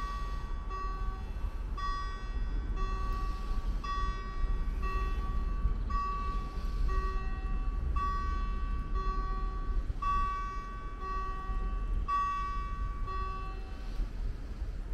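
Level crossing warning bell ringing with an even beat of about two strikes a second, then stopping near the end, over a steady low rumble.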